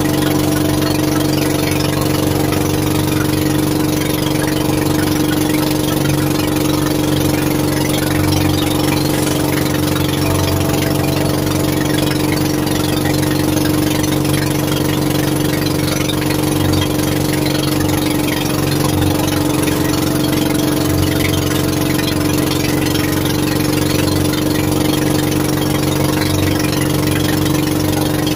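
Small fishing boat's engine running steadily at one even speed, with a constant drone and no change in pitch.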